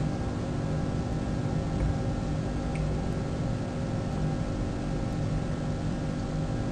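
A steady mechanical hum with several constant tones over a light hiss, unchanging throughout.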